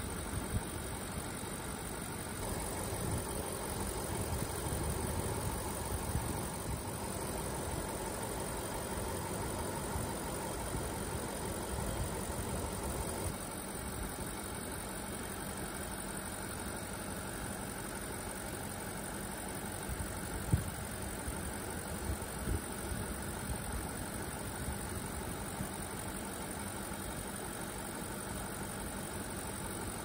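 BMW X5's 4.8-litre V8 idling steadily, heard from the open engine bay, with the air conditioning on full as the refrigerant is charged. It is a little louder for the first dozen seconds and drops back slightly about thirteen seconds in.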